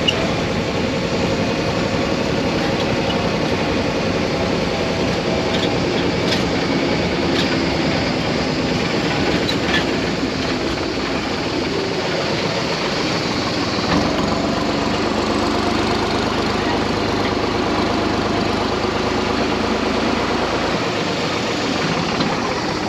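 Small farm tractor's diesel engine running steadily as it tows a passenger trailer over a dirt track, with occasional knocks and rattles from the ride.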